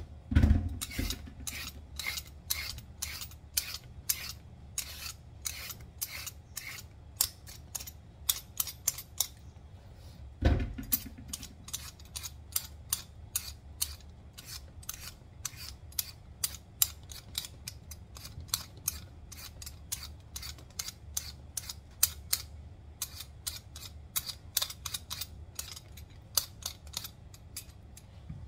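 Y-shaped vegetable peeler scraping skin off carrots and potatoes in quick repeated strokes, about two a second, with a low thump near the start and again about a third of the way in.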